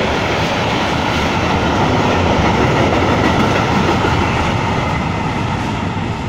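Freight train of open-top wagons passing close at speed: a steady, loud noise of wheels running on the rails.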